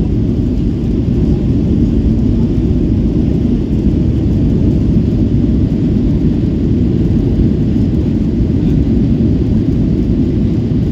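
Loud, steady low rumble inside the cabin of a Ryanair Boeing 737 as it rolls down the runway just after touchdown.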